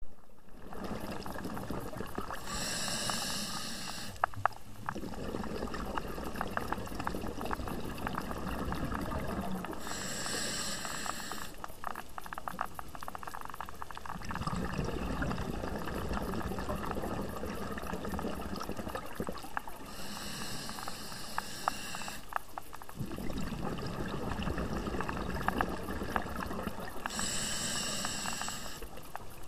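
Scuba diver breathing through a regulator underwater: four short hissing inhalations, each followed by a longer, low bubbling exhalation as the exhaust bubbles rise.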